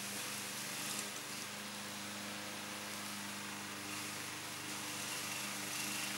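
Alpina BL 510 lawn mower's engine running steadily and faintly while cutting grass.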